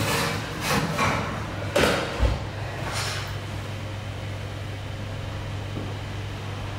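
A metal loaf tin is taken off the oven shelf and set down on the cooker hob with a few clanks, and the oven door is shut with a low thump a little over two seconds in. A steady low hum follows.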